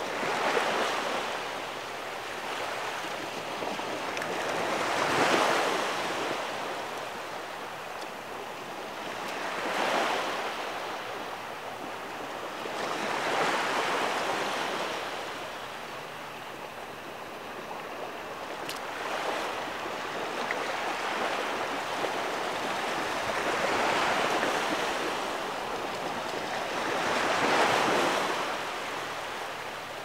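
Small waves washing in over a sandy beach as the tide comes in, swelling and fading every four to five seconds.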